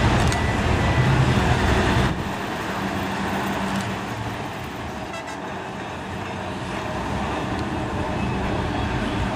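Trams running on street track amid road traffic. A loud low hum fills the first two seconds, then drops off abruptly into quieter traffic and street noise.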